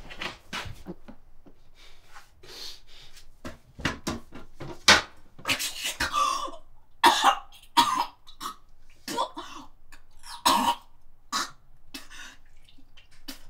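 A young woman coughing, gasping and retching over a toilet bowl in a string of harsh, irregular bursts, the loudest about halfway through.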